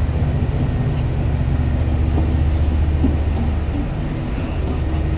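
Fireboat's marine diesel engines running alongside the pier: a deep, steady drone that eases slightly for a moment about four seconds in.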